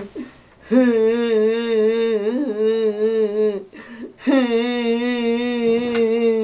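A woman's voice humming long, wavering held notes in two drawn-out phrases of about three seconds each, with a short break between them.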